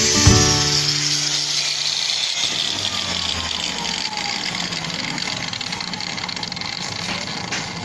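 A small handheld power tool running with a steady whirring hiss that slowly fades.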